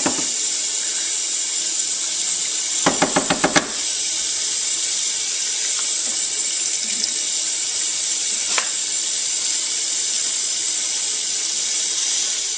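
Kitchen faucet running steadily into a stainless steel sink, the stream splashing over a cooked crab and the hands cleaning it. A brief rapid rattle about three seconds in and a single sharp click later.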